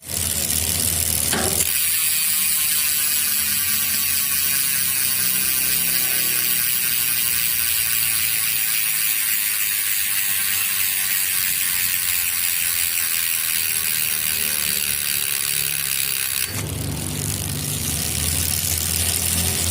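Fastace rear freehub on a mountain bike ticking rapidly as the rear wheel spins freely, its ratchet pawls clicking fairly loudly. The clicking slows gradually as the wheel coasts down, then gets louder and quicker again about sixteen seconds in.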